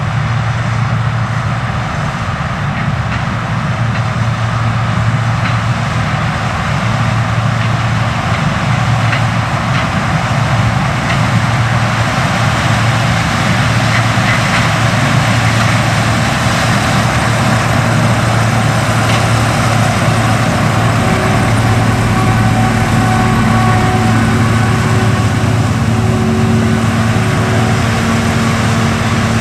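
Combine harvester running steadily in a corn field: a deep, even diesel drone mixed with the whir of its threshing machinery. A steady higher hum joins about two-thirds of the way through.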